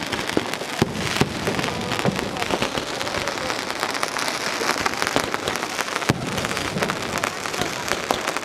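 Many fireworks going off at once in a dense, continuous crackle of overlapping pops, with a few louder bangs standing out, two near the start and one about six seconds in.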